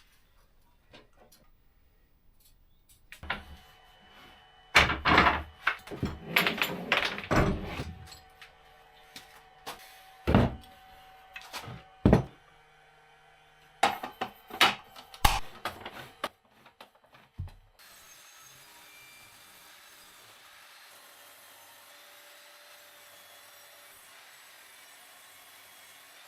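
Wooden workshop knocks and clunks: a burst of clattering knocks, then single sharp knocks and another short cluster, as pieces of wood are handled and knocked together. A steady faint hiss of background noise takes over for the last part.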